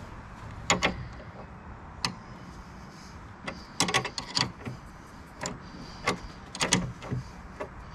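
Scattered metal clicks and clinks, a dozen or so short ones, from hands and tools working the nut off a seized outboard steering arm.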